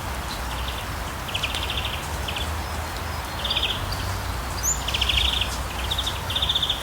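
Forest ambience: a small bird repeatedly giving short, rapid chirping trills in separate bouts, over a steady low background rumble.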